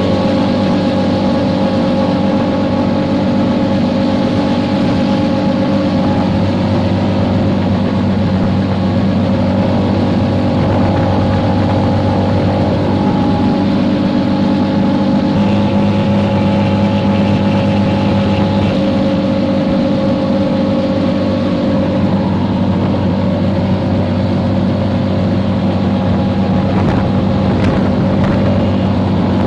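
Motor rickshaw's engine running steadily while riding along the road, heard from inside the rickshaw, its note shifting slightly about halfway through.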